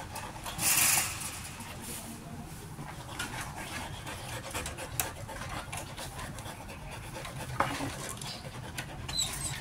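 Dogs panting and moving about behind a fence, with a loud brief hissy rustle about a second in and a few sharp clicks or knocks later on.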